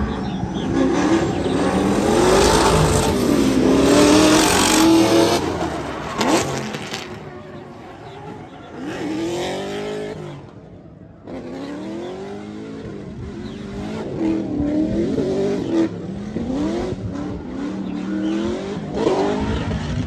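Drift car engine revving hard, its pitch climbing and falling with throttle and gear changes, over the loud hiss of sliding tires. It is loudest in the first several seconds, dips away about halfway through, then more high-revving passes follow.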